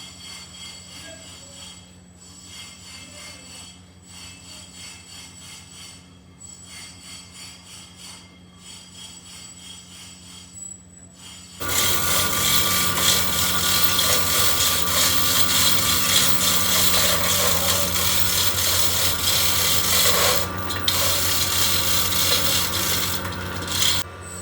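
A metalworking machine hums steadily, then about halfway through it starts a much louder, steady cutting or grinding noise on metal.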